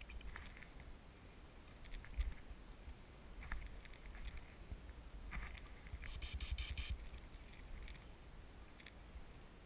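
A dog-handling whistle blown as a rapid string of about five high pips, lasting under a second, about six seconds in. Low wind rumble on the microphone runs beneath.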